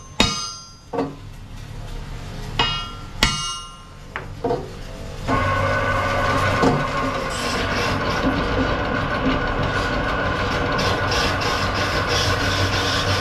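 Several hammer blows on a steel truck wheel drum clamped in a lathe chuck, each one ringing. About five seconds in, the lathe starts and runs steadily with a low hum as the drum turns.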